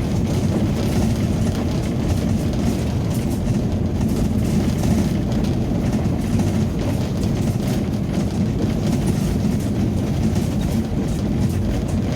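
Ambulance driving along a road, a steady low rumble of engine and tyre noise heard from inside the cab.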